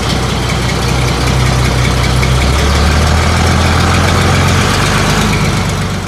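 Farm tractor's diesel engine running steadily, heard up close from the operator's seat: a low, even drone that grows a little louder about a second in.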